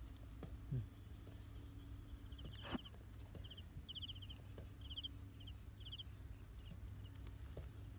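A cricket chirping in short, high, pulsed chirps, about one a second from roughly two and a half seconds in. Under it are faint scrapes and taps of a stem probing the soil of its burrow, with one sharper tap just before the chirping starts.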